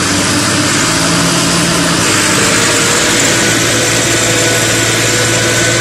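Farm tractor's diesel engine running steadily while it hauls a loaded trolley through deep mud; its note steps down in pitch about two seconds in and then holds.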